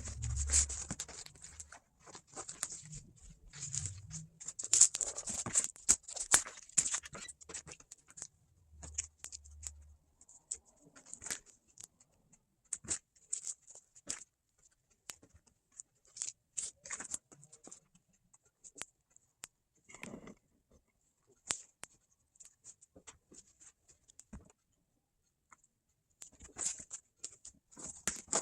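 Pieces of vinyl upholstery material being handled, shuffled and slid around on a worktable, giving on-and-off rustling and scraping with short pauses.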